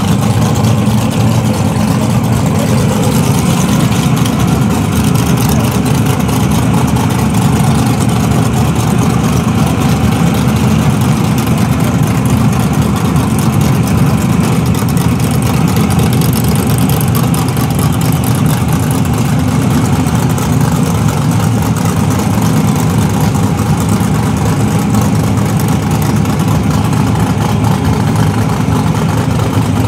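Drag-racing pickup truck's engine idling loudly and steadily, with no revving.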